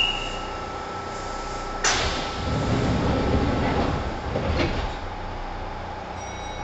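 Passenger doors of a Kintetsu 1010 series train closing at a station stop, heard from inside the car. A sudden hiss comes about two seconds in, then a rumble as the panels slide, ending in a thud as they shut about a second before the end.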